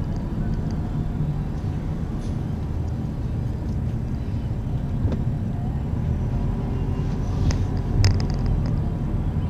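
Car driving slowly, heard from inside the cabin: a steady low rumble of engine and road noise. A single short knock comes about eight seconds in.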